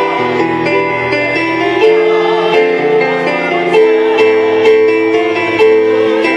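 Music with long held melody notes that change every second or two over a bass line.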